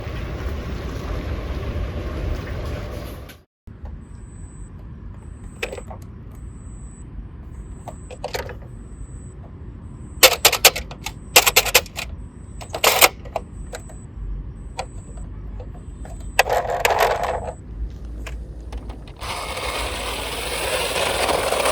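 Toy cars clinking and clattering against one another, with several sharp clicks in the middle. A steady rushing noise runs at the start and again near the end, typical of toy cars rolling down a slope.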